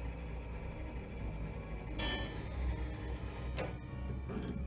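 A single ringing metallic clink about two seconds in, with a softer click later, from a metal gas-pump nozzle being handled against a car's grille. A low steady hum runs underneath.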